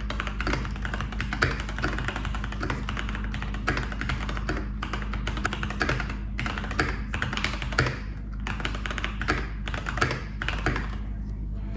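Typing on a Keychron K2 Pro mechanical keyboard with Gateron G Pro brown tactile switches: a dense, uneven stream of key clicks broken by a few short pauses.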